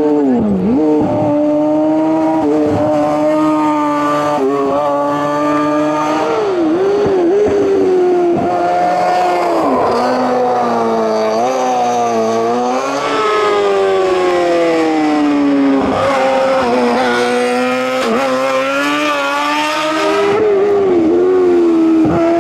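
Race car engine at hard throttle on a hill-climb course, revs climbing and dropping sharply again and again through gear changes and braking for corners.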